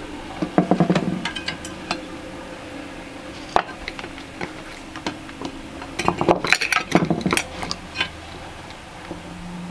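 Handling noise of multimeter test leads and clips being moved and set on the metal plates of a finned welder rectifier: scattered small clicks and taps, bunched about a second in and again around six to seven seconds in, with one sharp click in between.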